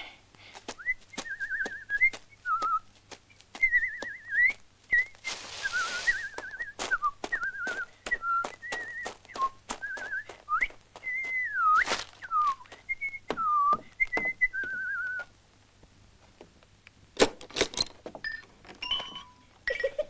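A man whistling a wavering tune with trills over a steady patter of footsteps. The whistling stops about fifteen seconds in, followed by a few sharp knocks near the end.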